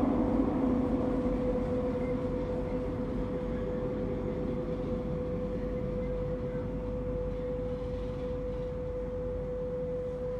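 Lisbon Metro train running through a tunnel and slowing into a station: the rumble of the wheels on the rails dies down over the first few seconds while a steady whine holds on.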